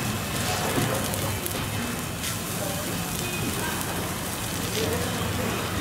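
Hot flat metal griddle (tawa) sizzling steadily under a pile of chopped onion and tomato, with a few faint taps as spices are spooned on.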